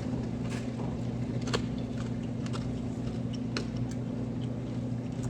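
Mouth sounds of someone eating fried chicken: a scattering of short soft clicks and smacks from chewing, over a steady low hum.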